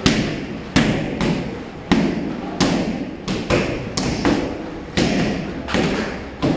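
Strikes landing on Muay Thai pads and focus mitts: about a dozen sharp smacks at an uneven pace, some close together in quick combinations, each with a short echoing tail.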